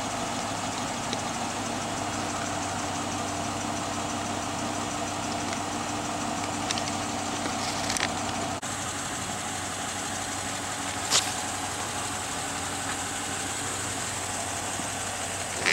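2013 Dodge Charger R/T's 5.7-litre HEMI V8 idling steadily after start-up. Two brief sharp clicks come about halfway through.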